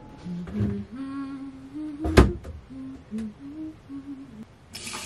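A woman humming a simple tune, holding one note after another. A sharp click comes about two seconds in, and a steady hiss starts near the end.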